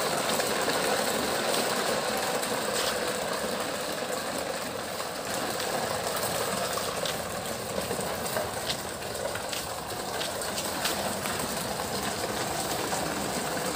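Small electric motor of a battery-powered toy vehicle running steadily, with light scattered clicks.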